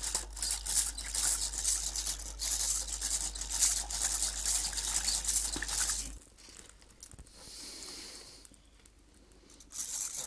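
Rotary hand whisk (egg beater) being cranked in a saucepan of thick soup: a fast, continuous rattle of the gears and beaters scraping against the metal pan bottom. It stops about six seconds in and starts again near the end.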